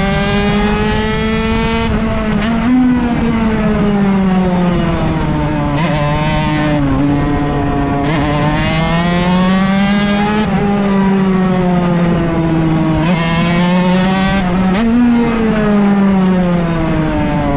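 Honda MB100 two-stroke single with a home-made expansion-chamber pipe, racing at high revs. The pitch climbs under acceleration, drops suddenly at gear changes, and sinks through the corners, several times over.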